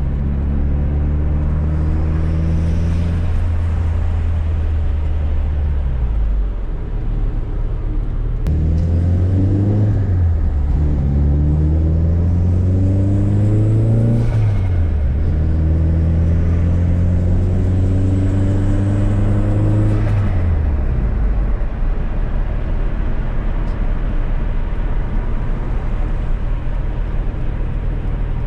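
Fiat Coupe 16V Turbo's turbocharged 2.0-litre four-cylinder engine accelerating hard up through the gears, its pitch climbing and then dropping sharply at two gear changes. The engine falls away after a lift-off near the two-thirds mark, leaving steady road and tyre noise as the car coasts.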